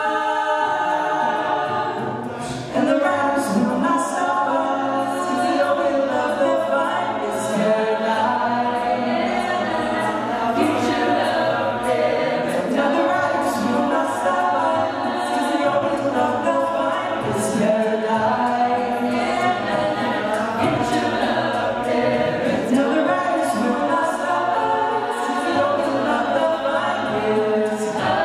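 A mixed a cappella choir singing a pop song, with a male and a female soloist leading over the group's backing vocals. The full group comes in louder about three seconds in, over a steady beat.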